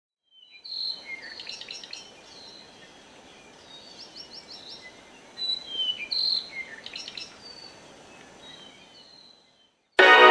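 Birds chirping and calling over a faint steady background hiss, including a quick run of about five high notes, fading out near the end. Loud music starts suddenly just before the end.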